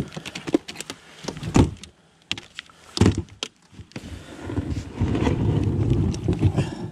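Knocks and clunks of a plastic fishing kayak and the gear in it as someone climbs aboard from the shore: a string of sharp clicks and thunks, then a steadier low rumble for the last two seconds.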